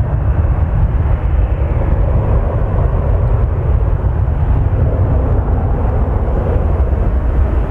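Turbofan engines of a Boeing 737-800 airliner climbing away after takeoff: a steady, deep jet rumble with no breaks.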